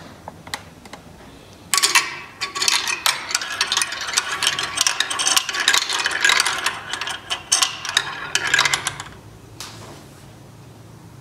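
Balls rolling and clattering down the ramps of a ball drop toy: a fast run of clicks and rattles that starts about two seconds in and stops about seven seconds later.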